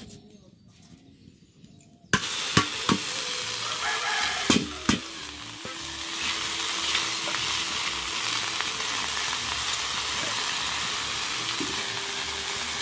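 Purple amaranth leaves hitting hot oil in an iron kadai, sizzling loudly from about two seconds in and on steadily, with a few sharp knocks of the spatula against the pan as they are stirred early on.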